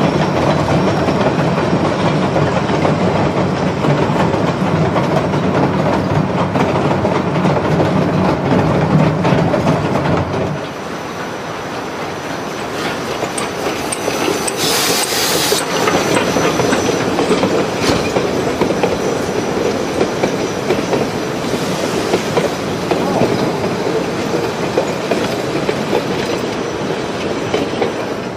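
Denver & Rio Grande Western narrow-gauge steam train passing, its wheels clattering over the rail joints and the cars rumbling. The sound drops a little and changes about ten seconds in, and there is a brief hiss about halfway through.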